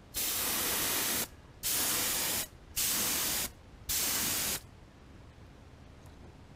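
Airbrush spraying paint in four short bursts of hiss, each under about a second, with brief pauses between them.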